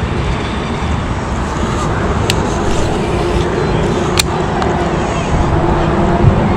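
Steady low rumble of wind on the microphone, with two sharp clicks about two and four seconds in from a baitcasting reel being handled.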